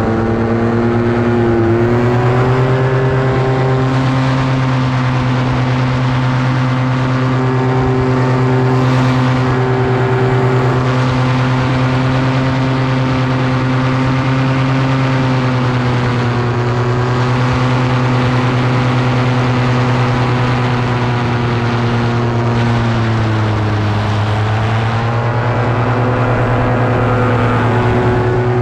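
Paramotor engine and propeller running steadily at cruise throttle in flight. The pitch drops briefly just after the start and again a few seconds before the end, then comes back up as the throttle is eased and reopened.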